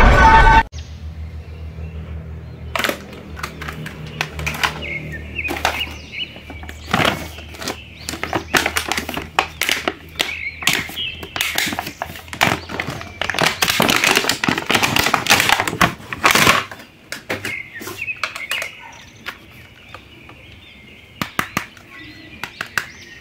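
A loud burst of film soundtrack, music with crash effects, cuts off abruptly in the first second. Then the plastic blister packaging of a battery-operated Batman toy crinkles and clicks as it is handled, over a low hum, with a denser, louder stretch of crinkling past the middle and a few scattered clicks near the end.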